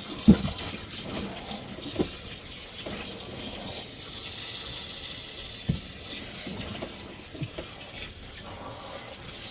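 Rinse water running steadily from a hose into the wash tub of a portable twin-tub washing machine, with a few short splashes and knocks as the clothes are rinsed and turned by hand.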